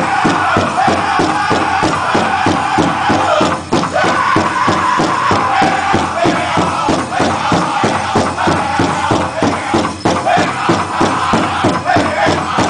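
Powwow drum group singing in high voices over a big drum beaten in a steady, fast beat of about four strokes a second.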